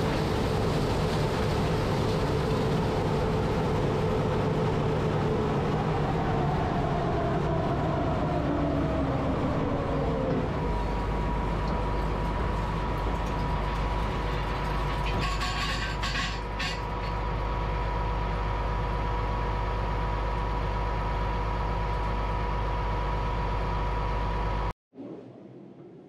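New Holland CR9060 combine harvester running while harvesting corn: a loud, steady mechanical drone with whining tones, one of which falls in pitch midway. The sound cuts off abruptly about a second before the end, leaving a much quieter hum.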